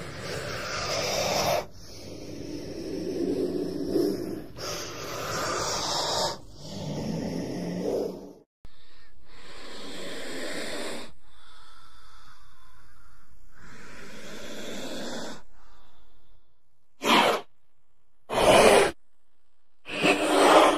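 Snake hissing: a run of long, breathy hisses, each a second or two long, the early ones with a low rumbling undertone. After a quieter stretch come three short, sharp hisses near the end.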